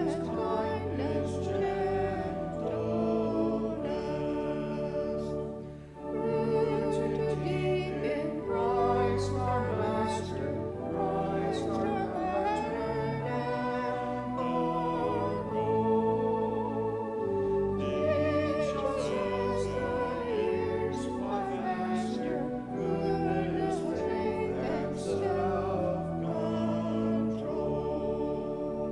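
A hymn sung with accompaniment: a verse comes to an end, there is a short break about six seconds in, and the next verse begins.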